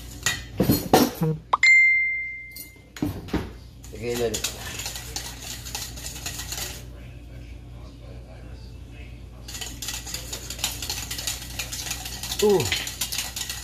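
Metal whisk beating a thin orange sauce in a stainless steel bowl, a fast rattling clatter of wires against the metal. About a second and a half in, a utensil strikes the bowl with a single ringing clink. The beating eases off for a few seconds midway, then picks up again.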